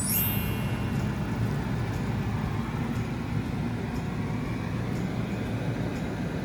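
An air fryer running: a steady low whirr with no break. At the very start a short high sweep falls quickly in pitch.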